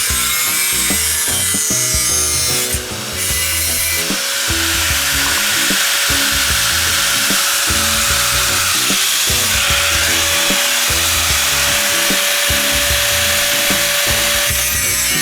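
Power tool working wood, a steady whining hiss with a short dip about three seconds in, over background music.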